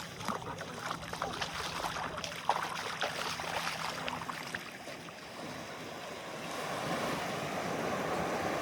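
Sea water washing along the shore, a steady rush that grows louder in the second half. Scattered sharp crackling clicks sound over it in the first half.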